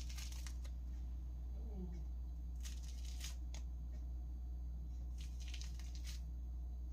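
Brief spells of faint rustling and crinkling, three short bouts, over a steady low hum.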